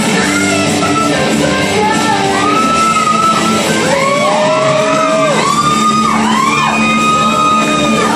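Loud rock music with guitar playing over a hall's sound system. In the second half a lead line of long sliding, bending notes comes in.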